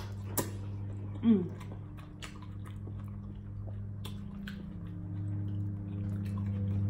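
Close-up chewing and mouth smacking of people eating, with scattered small clicks. There is a brief falling voice-like sound about a second in, and a steady low electrical hum underneath that grows louder near the end.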